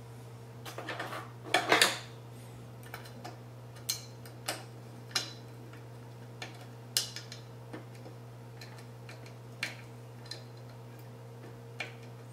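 Small metal screws and a screwdriver clicking and rattling against the radiator and case top as a Swiftech H220 radiator is screwed in, with a clattering burst about a second in, then scattered single sharp clicks. A steady low hum sits underneath.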